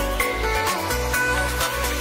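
Electronic background music with pulsing bass and sustained synth tones.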